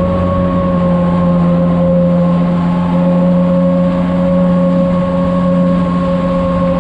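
Jet ski engine running at a steady, constant throttle, its engine note holding one even pitch.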